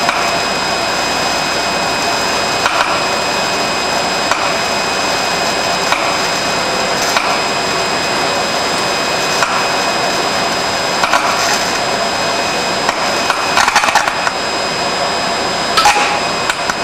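Steady crackling sizzle of electrical scintillation and arcing across a wetted Poly-X (BMS 13-42A) aircraft wire bundle, with sharp cracks from flashing events that come more often toward the end, the loudest about 14 and 16 seconds in. It is the sound of wet arc tracking: the aged, nicked insulation breaking down into arcs under lavatory wastewater.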